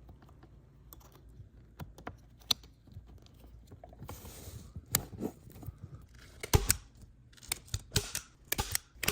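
Scattered clicks, light knocks and a brief rustle of a power recliner's controller and its cable being handled and pushed back into the sofa frame; the clicking comes thicker near the end.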